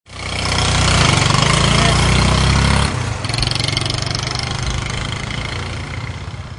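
Motorbike engine running with road noise. It starts suddenly and loud, then drops back to a lower, steady level about three seconds in.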